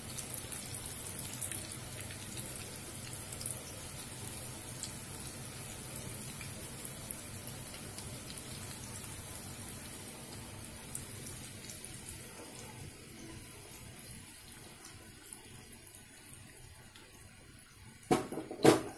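Spinach pakoras deep-frying in hot oil in a kadai: a steady sizzle with fine crackles that slowly quietens. Two loud knocks come near the end.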